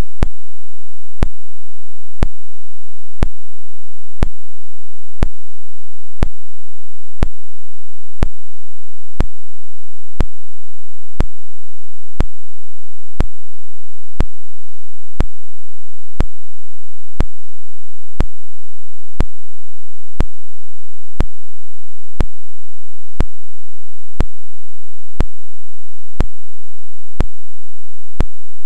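Sharp clicks, evenly spaced about one a second, over a faint steady hiss and hum.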